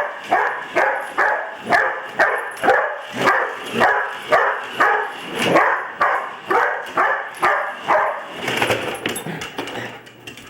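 Dog barking over and over in a fast, even run of about two to three barks a second, becoming weaker and less regular near the end.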